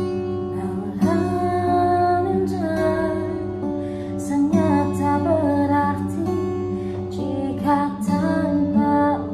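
Acoustic guitar strummed steadily while a woman sings a slow melody over it, her voice coming in about a second in.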